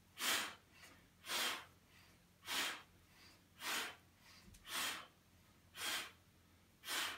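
A man's forceful exhalations, seven short breaths out at a steady pace of about one a second, each timed to a knee being pulled in to the chest during a Pilates single leg stretch.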